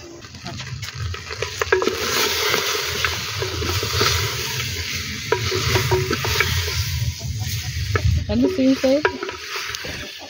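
Chicken pieces sizzling in a clay pot as a wooden stick stirs them, with scattered knocks of the wood against the pot.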